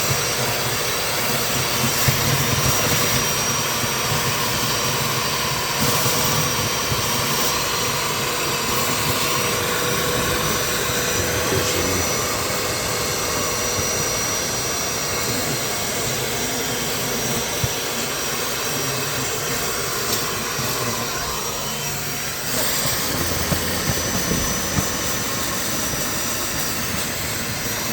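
Bucket-top shop vac on a 5-gallon bucket running steadily with a constant whine, vacuuming pool water and debris.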